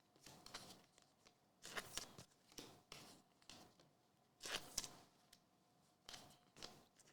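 Trading cards being handled and slid against each other: quiet, intermittent rustles and scrapes, with louder ones about two seconds in and again around halfway.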